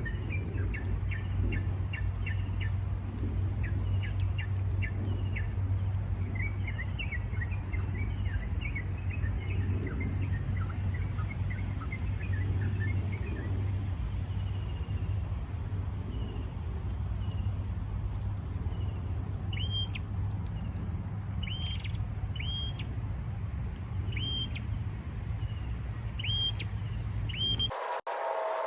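Small birds chirping in quick runs, then a short call repeated about every second and a half, over a steady high insect drone and a low hum; the sound cuts off abruptly near the end.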